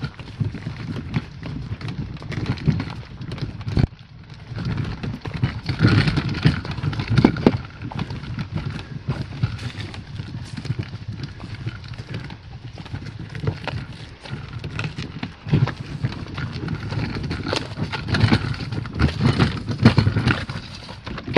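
Kayak hauled down a dirt and gravel path, its hull scraping and bumping over the ground, mixed with crunching footsteps.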